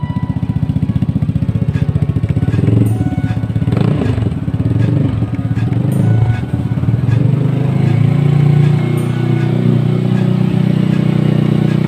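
Vespa Sprint scooter's single-cylinder four-stroke engine running through an aftermarket slip-on muffler, mostly idling steadily, with the revs briefly raised and let fall a few seconds in.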